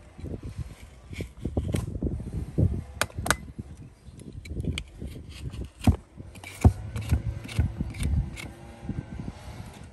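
Hoof knife paring the sole and frog of a horse's hoof: irregular scraping strokes with sharp clicks and low knocks, the loudest clicks about six and seven seconds in.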